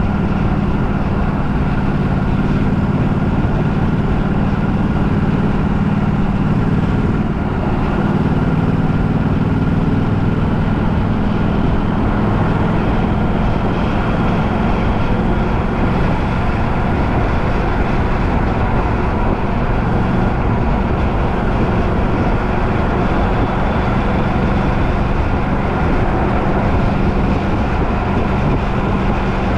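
Steady, unbroken running noise of a moving vehicle: a low engine hum under an even rush of travel noise.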